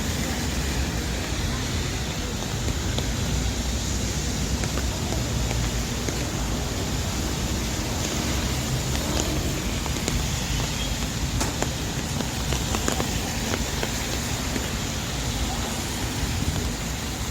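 Busy city street in steady rain: rain falling on the pavement mixed with a continuous low traffic rumble, passing cars and scattered voices of passers-by.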